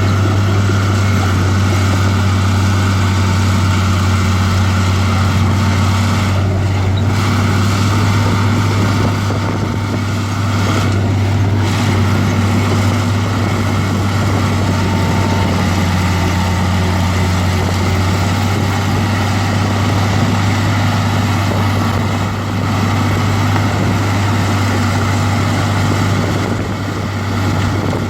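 Heavy diesel engine of earthmoving machinery running steadily, a loud, even low drone that barely changes.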